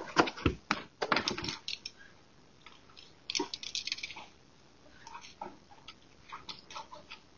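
Footsteps crunching on loose gravel: a fast run of sharp crunches in the first second and a half, then scattered scuffs and clicks, with a short burst about three and a half seconds in.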